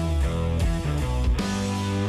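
Background music: a rock track with guitar over a steady beat.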